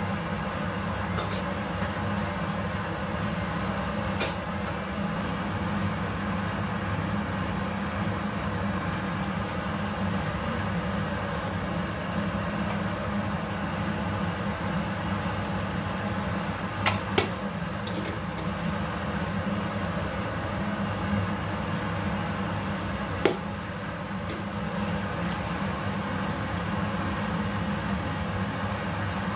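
Kitchen range-hood extractor fan running with a steady low hum. A few sharp metal clinks, a ladle and tongs knocking against the soup pot, come about four seconds in and again twice after the middle.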